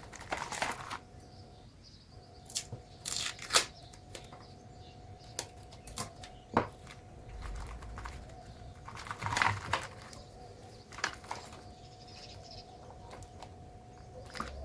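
Intermittent crinkling, rustling and sharp tearing-like handling noises, a dozen or so short bursts, over a faint steady hum that drops out briefly about two seconds in.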